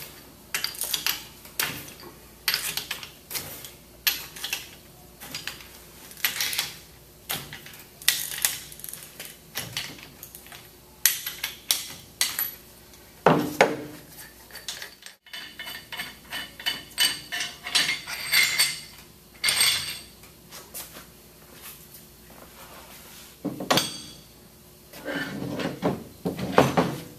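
Irregular metal clinks and clicks as the stainless steel bolts of a chemical injection pump's bottom flange are worked loose with a ratchet wrench and lifted out, with a few heavier metal knocks near the end.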